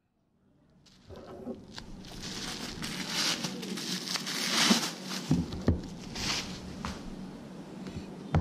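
Bubble wrap rustling and crinkling as it is pulled off a cardboard box, starting about a second in, with a few knocks of the box on a wooden table.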